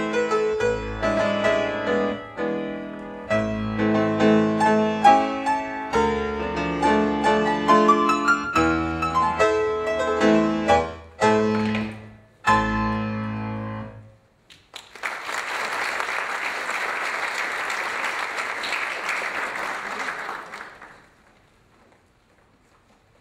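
Solo piano music accompanying a ballet piece, ending with a few final chords about fourteen seconds in. Audience applause follows and dies away a few seconds before the end.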